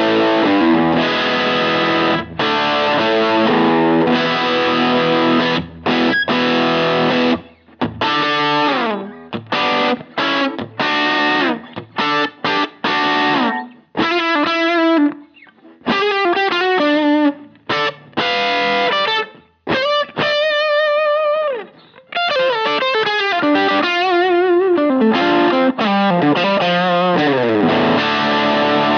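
Electric guitar on its Lambertones Grinder bridge pickup, played through a pedalboard with a distorted tone. It opens with full chords and short stabbed chords, moves to a single-note lead with string bends and wide vibrato in the middle, and ends on ringing chords.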